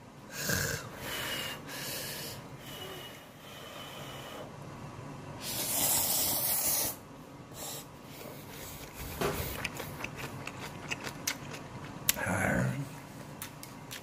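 A person slurping hot ramen noodles: a few short slurps in the first seconds, then one long, loud slurp around the middle. Light clicks and chewing follow near the end.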